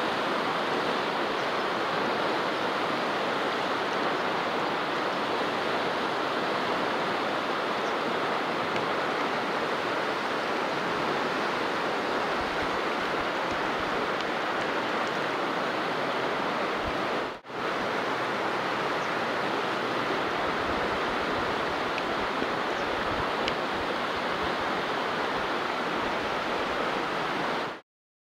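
Fast, shallow mountain river rushing over a stony bed: a steady, loud rush of water that drops out for an instant about two-thirds of the way through.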